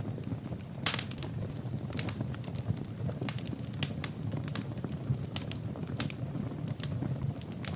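Wood fire burning in a fireplace, crackling with irregular sharp pops and snaps over a low steady rumble of flames.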